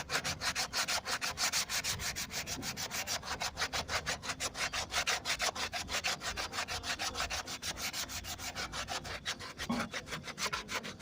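Sanding by hand on the car's dashboard in quick, even back-and-forth strokes, about six a second.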